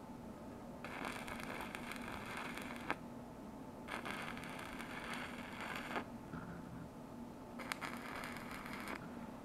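Arc of a stick (electrode) welder on a small inverter machine, crackling and hissing as a 2 mm electrode lays weld on stainless steel. It runs in three bursts of one to two seconds, with short pauses between as the arc is broken and struck again.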